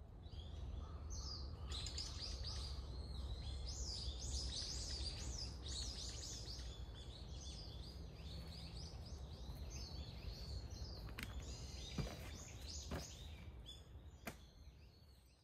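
Many wild birds chirping and singing together in woodland, over a steady low rumble. A few sharp clicks sound in the last few seconds, and the whole fades in and out.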